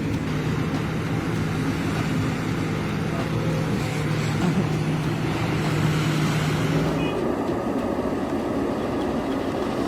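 High-pressure washer spraying water onto an excavator, a steady hiss over a low machine hum. About seven seconds in the sound changes and the hiss thins.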